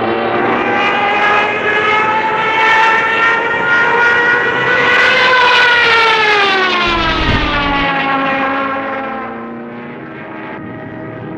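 World War II fighter plane flying past. Its engine drone rises slowly in pitch and is loudest about five seconds in, then drops in pitch and fades as the plane moves away.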